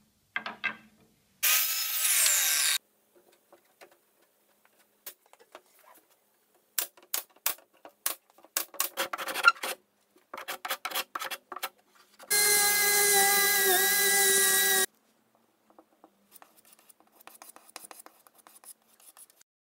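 Woodworking shop sounds in quick succession: a power tool runs briefly about two seconds in, a run of sharp knocks and taps follows, then a power tool runs again with a steady whine for a couple of seconds past midway. Near the end there is faint scraping of a blade across pine boards.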